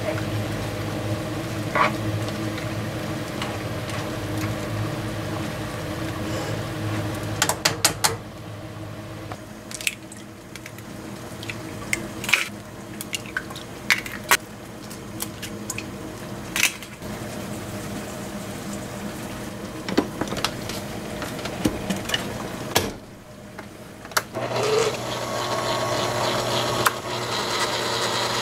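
A spatula stirring a wet, creamy vegetable mixture in a frying pan, with squishing, liquid sounds, followed by a scattered series of sharp taps and clicks.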